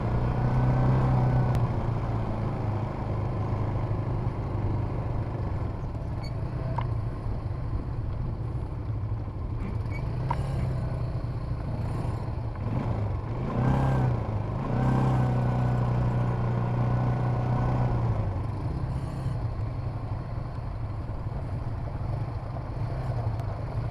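Quad-bike (ATV) engine running while riding, the engine note rising and falling with the throttle and loudest about a second in and again from about fourteen to eighteen seconds.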